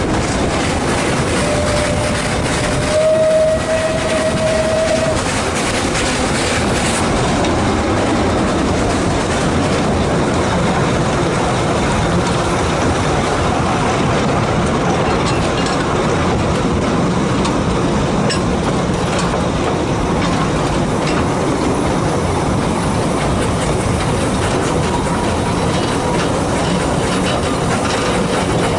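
A narrow-gauge passenger carriage running along the track behind a steam locomotive, with a steady rumble and wheel clatter. A locomotive whistle sounds one steady note a couple of seconds in and holds for about three seconds.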